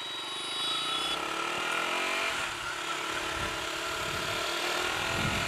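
Motorcycle engine running close by, revving with a rise in pitch about a second in, then running steadily.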